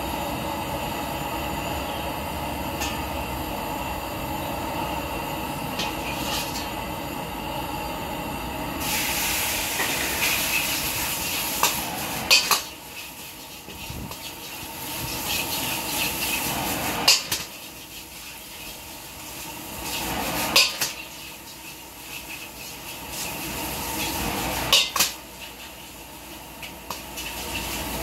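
A stove runs with a steady roar under a hot carbon-steel wok; about nine seconds in, a loud sizzling hiss starts as rice noodles are stir-fried in it. A metal ladle clanks sharply against the wok several times while the sizzling rises and falls.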